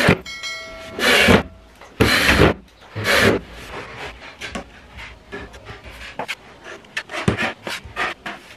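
A cordless drill's motor whines briefly near the start, then come three loud rubbing strokes about a second apart. After that, many short, light scrapes follow as a putty knife spreads joint compound over a drywall patch.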